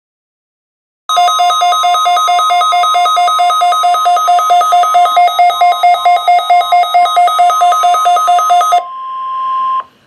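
Midland WR120 NOAA weather radio sounding its alert alarm for a Required Weekly Test: a loud, fast two-tone beeping that starts about a second in. Near the end the beeping stops, leaving the broadcast's steady warning tone playing through the radio's speaker for about a second before it cuts off.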